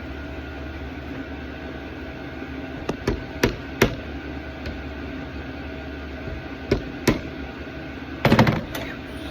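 Hammer blows on the old hinge pin, used as a drift to knock the old bushings out of a Jeep door hinge. There are a handful of sharp metal strikes from about three seconds in, and a short rattling clatter near the end, over a steady background hum.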